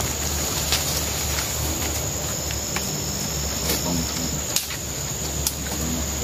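Steady high-pitched insect drone, with a few sharp crackles of dry leaves and twigs being handled and stepped on.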